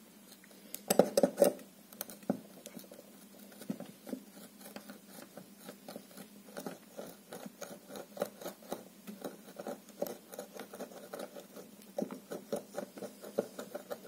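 Steel blade tip of a cheap non-locking folding knife being twisted into a wooden stick to drill a hole: a run of light, quick scraping clicks as the point bores into the wood, louder about a second in and again near the end.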